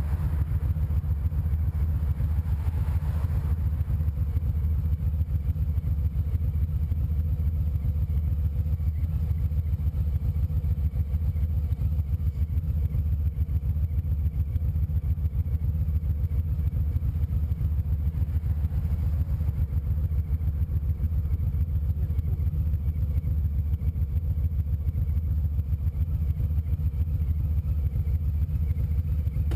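Motorcycle engine running steadily at cruising speed, a continuous low rumble with an even, fast pulse.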